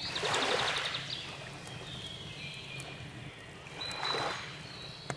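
Water-like whooshing sound effects: a swell in the first second with a quick run of high ticks over it, and a second swell about four seconds in.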